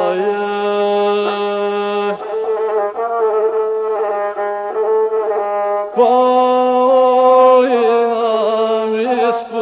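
Gusle, the single-string bowed Balkan fiddle, playing an instrumental passage between sung verses: a nasal, ornamented melody over a steady lower tone, which drops out about two seconds in and returns louder about six seconds in. The last sung word is held over it at the start.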